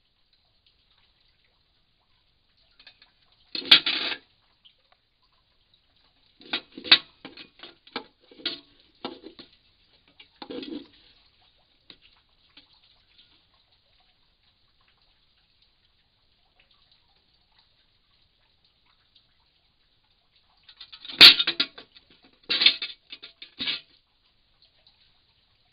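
A hedgehog moving and foraging close to the microphone, making short bouts of rustling and scratching with sharp clicks. The bouts come about four seconds in, through several seconds in the middle, and again near the end, with long quiet gaps between them.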